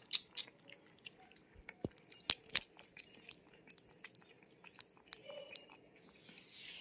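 A small puppy lapping milk and chewing soaked food from a stainless steel plate: irregular wet clicks and smacks, with a couple of sharper clicks about two and a half seconds in.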